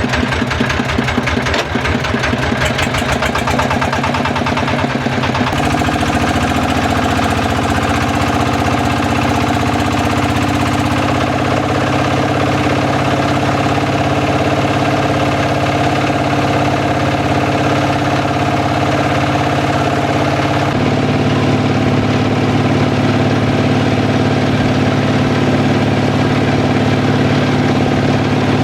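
A small boat's engine running: separate firing beats can be heard for the first few seconds, then about five seconds in it speeds up to a steadier, faster drone, and its pitch shifts once more about three quarters of the way through.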